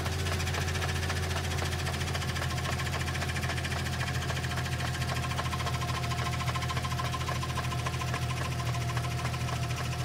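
Car transmission running steadily, with a low drone under a fast, even ticking rattle. A faint steady whine comes in partway through.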